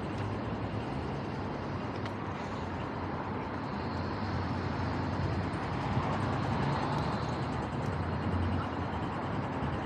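City street traffic: cars driving by with steady engine and tyre noise, a little louder from about four to eight seconds in as a vehicle passes close.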